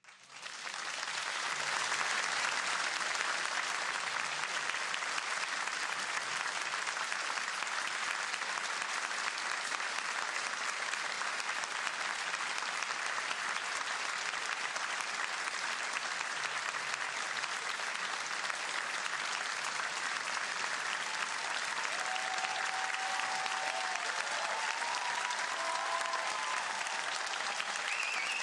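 Theatre audience applauding at the end of the play: the clapping breaks out suddenly out of silence and holds as a steady, dense ovation. A few faint voices rise over it near the end.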